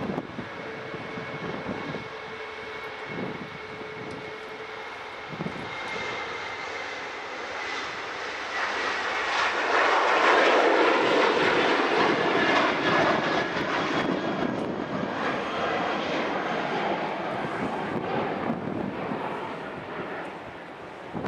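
Airbus A380's four Rolls-Royce Trent 970 turbofans at taxi power: a high whine that slides slightly down in pitch, under a jet rush that swells to its loudest about halfway through as the aircraft passes, then eases.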